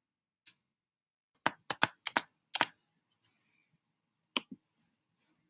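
Computer keyboard and mouse clicks: a quick run of about six clicks about a second and a half in, then a pair near the end, with silence between them.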